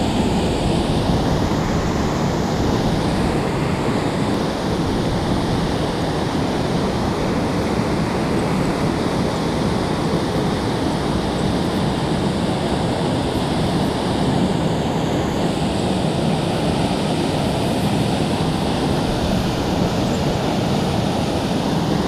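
Water pouring through the gates of a small concrete river dam, a steady, even rush of whitewater.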